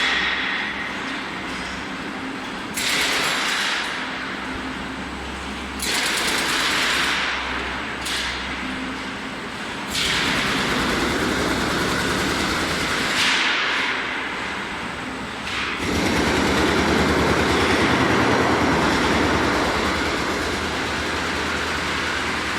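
Running machinery of a steel wire hot-dip galvanizing line: a steady mechanical rattle and hiss that changes abruptly every few seconds.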